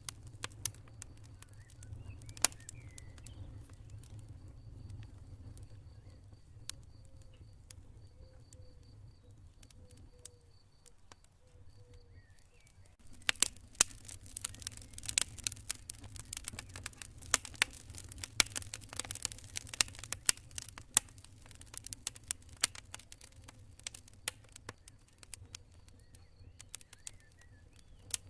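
Campfire crackling: scattered sharp snaps and pops over a low steady rumble, growing into a dense run of crackles about halfway through. A faint pulsing high chirp, like a cricket, comes and goes behind it.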